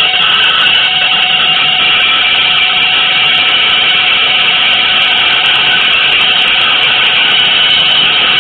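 Loud, steady, harsh hissing noise with a few faint held tones beneath it, unchanging throughout: an experimental noise-music texture.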